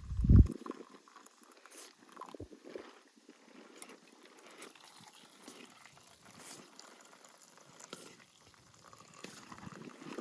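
Faint, irregular liquid sounds of coffee being made, with a loud, dull low thump just after the start.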